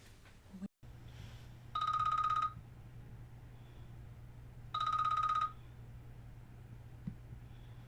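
A telephone ringing: two trilling rings, each under a second long and about three seconds apart, over a low steady room hum.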